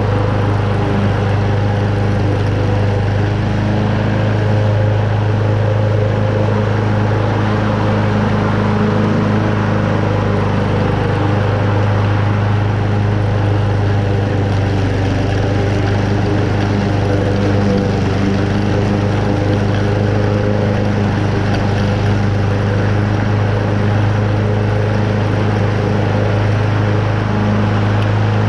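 Toro Super Recycler walk-behind mower's Honda engine running steadily with the blade spinning, cutting moderately wet, tall grass.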